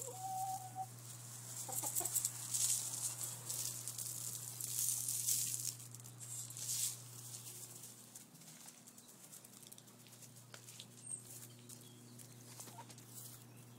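Backyard hens being fed chicken scratch: a short cluck just after the start and another about two seconds in, then several seconds of hissy rustling that fades after the middle. A steady low hum runs underneath.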